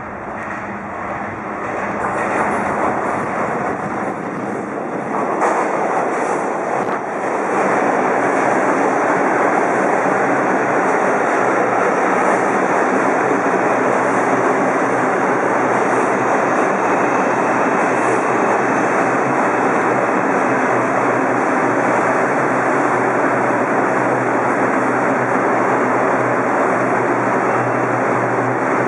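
R142 subway train rumbling as it comes into the station. It grows louder over the first eight seconds and then runs steadily loud.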